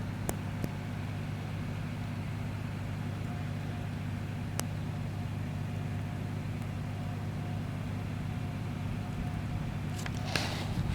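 Steady low hum of a car running, with a few faint clicks and a short rushing noise near the end.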